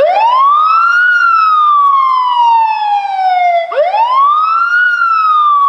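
Panic alarm siren from a smart-home automation system, played through its loudspeaker: a loud wailing tone that sweeps quickly up and then slowly down, twice. It sounds because the panic button was held for three seconds.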